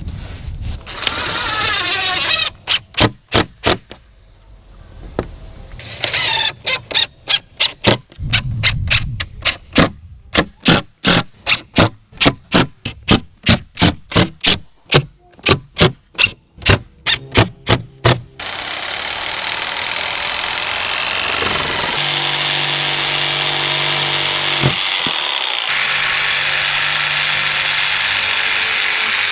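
A cordless DeWalt impact driver drives screws into pressure-treated pine fence pickets in a long string of short, rapid bursts, about two a second. About eighteen seconds in, a corded DeWalt jigsaw takes over and runs steadily, cutting through the boards.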